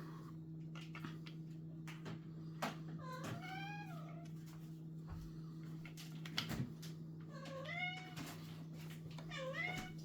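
A cat meowing three times, each call a short rising-then-falling meow: one about three seconds in, one near eight seconds and one near the end. A steady low hum and light scattered clicks run underneath.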